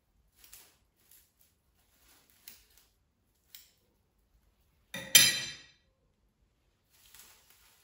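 Faint snips of scissors cutting through a clear plastic bag, then about five seconds in one sharp clink with a brief ring as the metal scissors are set down on a hard surface. Soft crinkling of the plastic near the end.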